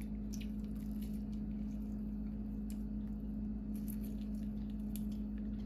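A cut lime half squeezed by hand over chicken pieces in a steel bowl: faint wet squishes and small clicks, over a steady hum.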